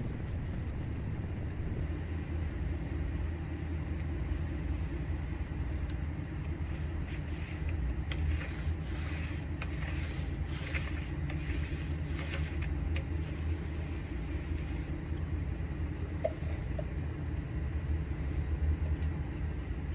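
Steady low rumble throughout. About 8 to 13 seconds in there is a run of short brushing strokes as a paint brush works polyaspartic coating over an epoxy flake floor.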